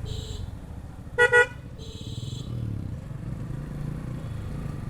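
A horn beeps twice in quick succession about a second in, the two short beeps much louder than anything else, over the low steady running noise of a motorcycle ride. Fainter high-pitched tones sound briefly at the start and again about two seconds in.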